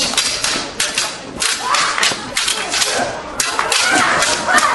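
Staged battle: a rapid series of sharp cracks and thuds, mixed with shouting voices.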